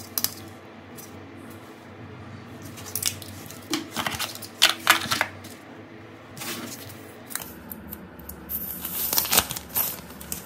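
Hands handling a plastic phone charger, a cardboard phone box and the phone: scattered clicks, taps and rustles, with a longer rustle near the end.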